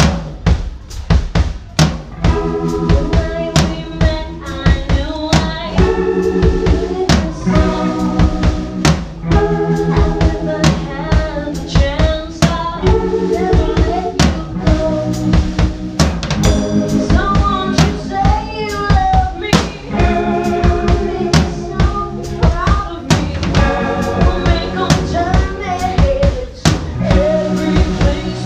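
Live rock band playing loudly: a drum kit beat of bass drum and snare, with the band coming in about two seconds in, holding chords over the beat and a wavering melody line above.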